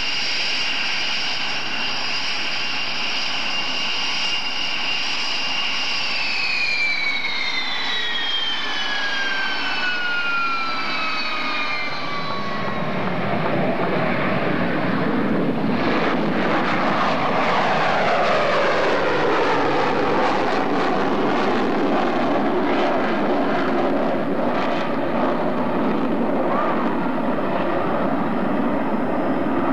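The B-1B Lancer's four General Electric F101 turbofans whine steadily on the ground, then the high whine falls in pitch from about six seconds in as the engines wind down. From about twelve seconds in, the broad jet roar of the B-1B in flight takes over, a little louder, with a slowly sweeping tone.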